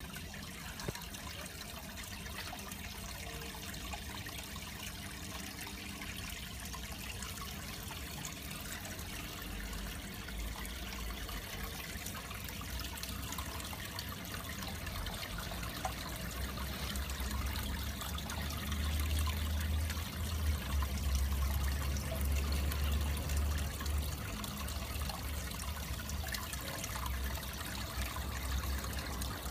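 Aquarium water trickling steadily. A low rumble grows louder from about halfway through and eases off near the end.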